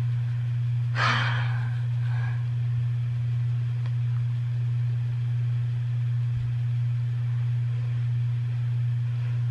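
Steady low hum throughout, with one short breathy sound about a second in.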